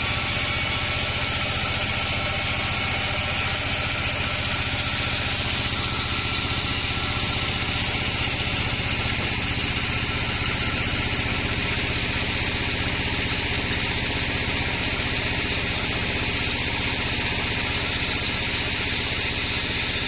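Sawmill log band saw running steadily, a continuous machine hum with no cutting strokes.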